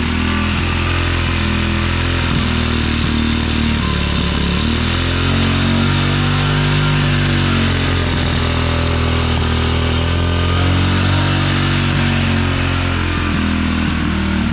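Single-cylinder four-stroke engine of a 2016 Tao Tao 110cc pit bike running a little rough at a high idle. Its speed rises and falls back twice, which the owner puts down to carburetor cleaner being drawn in through a leaking gasket and acting as fuel.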